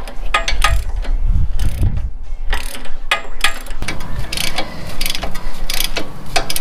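Hand socket ratchet clicking in quick runs of strokes, with short pauses between runs, as a sway bar link nut is tightened.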